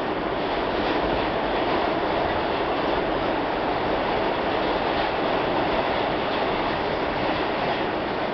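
R-46 New York City subway car running at speed through a tunnel, heard from inside the car: a steady, even noise of wheels on rail and the train's running gear.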